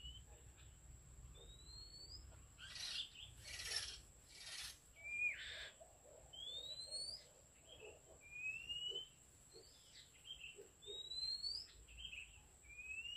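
Oriental magpie-robin song: short upward-sliding whistles repeated every second or two, with a few harsh, noisy calls about three to five seconds in. A steady thin high whine runs underneath.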